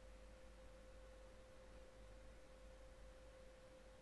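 Near silence: room tone with a faint, steady single pitched tone and a low hum underneath, unchanging throughout.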